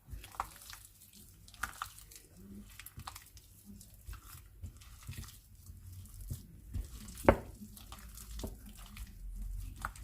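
Hands kneading marinated pork slices with crispy-fry flour in a bowl: irregular wet squelches and small slaps, the sharpest about seven seconds in.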